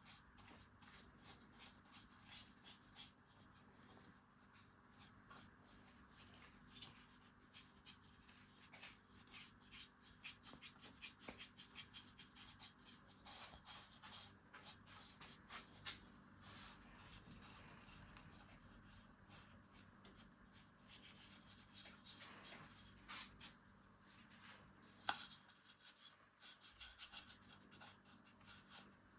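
Faint, quick scraping strokes of a hand tool working beech wood, coming in short runs with pauses between them.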